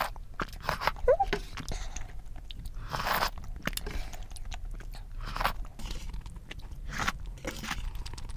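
Close-miked eating sounds of udon broth and noodles: slurps and wet mouth noises, with a longer slurp about three seconds in, mixed with light clicks and scrapes of a wooden ladle in the metal pot.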